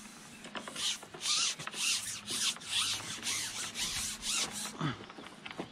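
Close rustling and rubbing against the microphone in a quick run of scrapes, about three a second, stopping shortly before the end.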